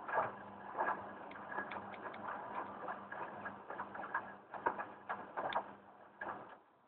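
Hoover Boilwash washing machine running: a steady low hum with irregular clicks and knocks, which stop near the end.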